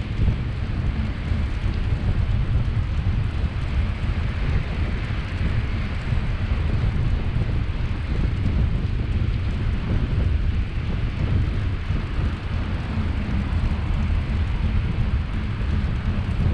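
Wind buffeting the microphone of a camera on a moving bicycle: a steady, flickering low rumble with a hiss above it.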